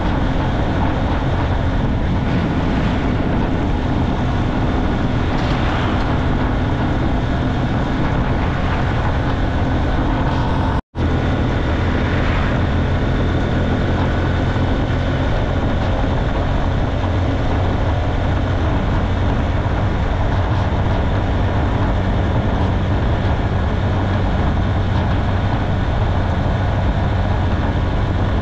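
Small motorcycle's engine running steadily at cruising speed, with heavy wind and road noise. The sound cuts out for an instant about eleven seconds in.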